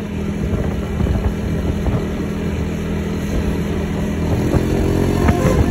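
Bus engine running with a steady low drone.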